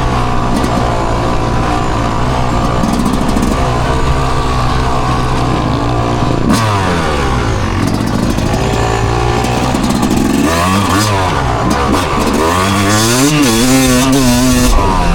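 Motorcycle engine running loud and being revved up and down. The pitch drops and climbs again about six seconds in, then swings rapidly several times near the end.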